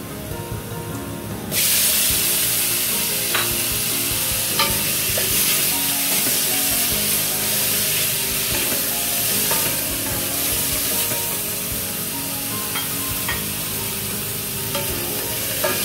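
Diced tomato hitting hot oil with frying garlic and ginger in a steel wok: the quiet sizzle jumps to a loud, steady sizzle about a second and a half in. The sizzle goes on as a spatula stirs the pan, with occasional sharp scrapes and clicks of spatula on metal.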